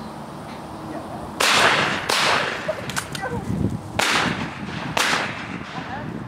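Four shotgun shots at flying doves, the first and loudest about a second and a half in, a second shortly after, then two more about a second apart near the end.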